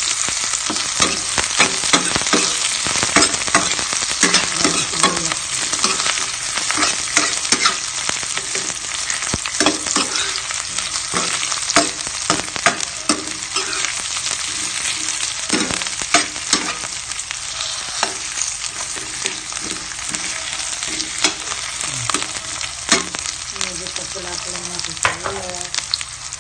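Sliced red onions and garlic sizzling in hot cooking oil in a frying pan while being stirred, with frequent sharp clicks and scrapes of the spatula against the pan. This is the sauté of the garlic-and-onion base.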